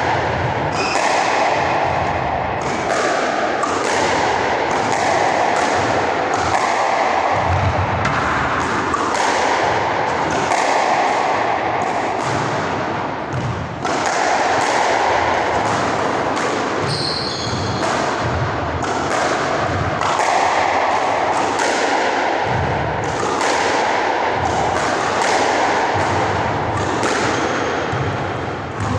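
Squash ball struck repeatedly by a racket and smacking the front wall, sharp hits coming about every half second to a second, echoing in the squash court.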